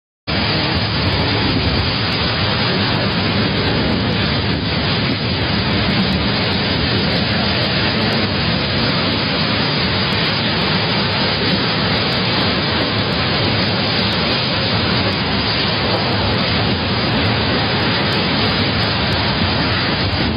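Steady, loud roar of storm wind and driving rain, an even hiss with no let-up, starting abruptly about a quarter of a second in.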